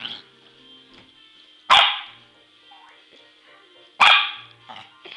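Shorkie puppy barking: a short bark at the start, then two loud, sharp barks about two seconds apart and another right at the end, over faint background music.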